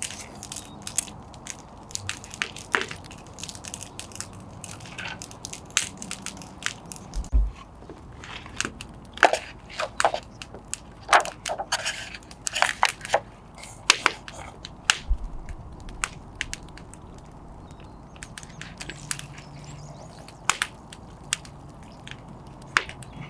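Wood fire crackling, with irregular sharp pops and snaps, and a couple of dull low thumps.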